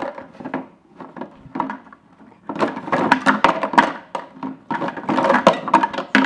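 Plastic treat bottles in a wooden puzzle toy clattering and knocking as a dog noses and flips them, with dry treats rattling inside. A few scattered knocks, then a busy run of clatter from about halfway through.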